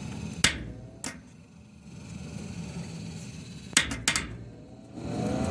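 Gas furnace's draft-inducer fan running down after its thermostat call is cut, with sharp clicks about half a second in, another about a second in, and three in quick succession near four seconds. About five seconds in, the inducer fan starts up again with a rising whine as the furnace begins a new heating cycle.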